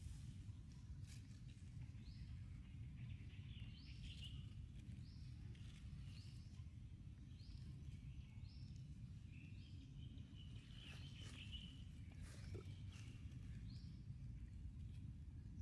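Faint, repeated short high chirps from an animal, rising in pitch and coming roughly once a second, over a low outdoor rumble, with a rougher chattering stretch and a few clicks past the middle.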